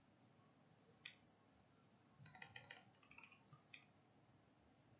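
Faint computer keyboard typing: a single keystroke about a second in, then a quick run of keystrokes between about two and four seconds.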